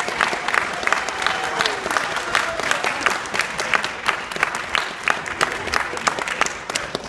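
Audience applauding, with sharp claps from close by standing out above the rest; the clapping begins to die down near the end.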